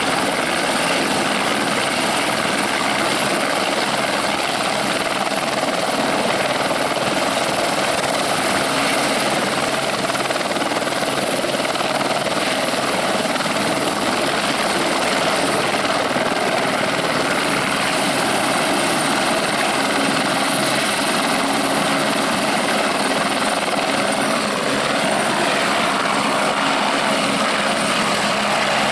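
Airbus AS350 B3 Écureuil helicopter running on the ground, its single turboshaft engine and main rotor making a steady loud whine and rotor noise, then lifting off near the end.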